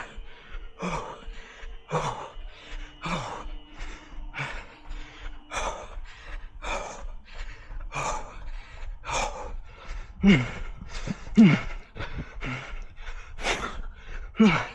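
A runner's hard, rapid breathing mid-run, about two breaths a second, some breaths voiced as gasps. The gasps are loudest a little after the middle.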